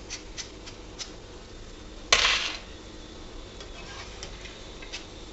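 Boondi frying in a wok of hot oil, with scattered light ticks and crackles. About two seconds in there is one short loud clatter as the wire spider strainer and its load of fried boondi are knocked and emptied.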